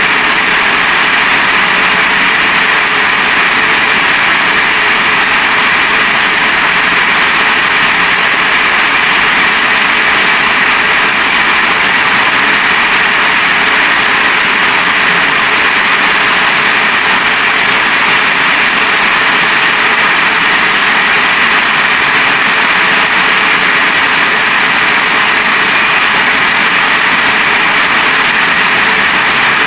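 Rain falling steadily: an even, loud hiss that does not change.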